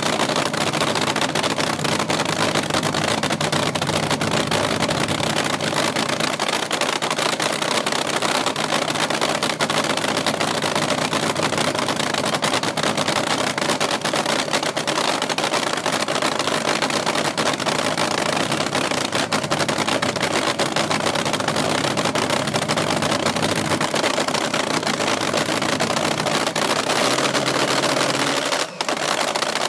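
Supercharged nitromethane-fuelled AA/fuel altered drag racing engine idling steadily with its crackling nitro cackle.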